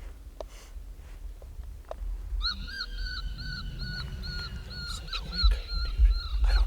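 Predator call playing a repeating high-pitched distress cry, the same short rising-and-falling note about three times a second, starting about two and a half seconds in, with low rumble and a few thumps beneath.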